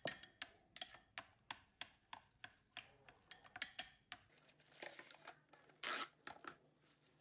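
Wooden chopsticks beating egg in a small ceramic bowl, clicking against the side about three times a second. From about four seconds in, plastic cling film crinkles as it is pulled from its box and stretched over the bowl, with one loud rasp near six seconds as it is torn off.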